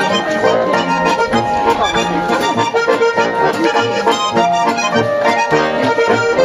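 Bavarian folk music played on a diatonic button accordion (Steirische Harmonika), with zither and guitar accompaniment.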